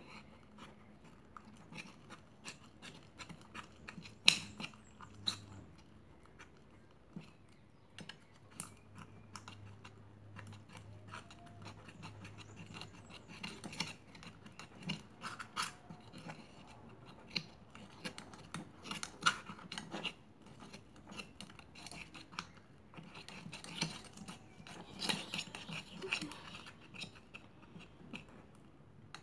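Clear plastic spoon stirring thickening slime of glue, paint and liquid soap in a small metal pot, with irregular scrapes and clicks of the spoon against the pot, the loudest about four seconds in.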